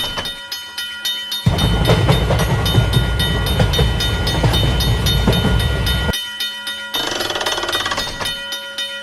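Railway level-crossing warning bell ringing steadily, with a train passing through the crossing from about a second and a half in until about six seconds in, a loud rumble and clatter over the bell.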